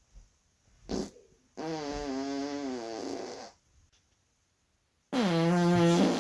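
A man's farts: a short puff about a second in, then a long pitched fart of about two seconds whose tone wavers. A louder fart, held on a steadier pitch for about a second, comes near the end.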